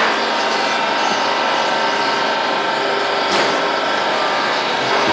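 Steady machinery noise from a running hydraulic book casing-in press, with a few steady hum tones and a single sharp click about three seconds in.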